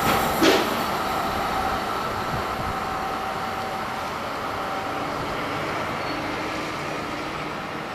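Electric passenger train of double-deck coaches running through a station: steady rumble of wheels on the rails, with a sharp clank about half a second in and a faint steady whine that fades out about five seconds in.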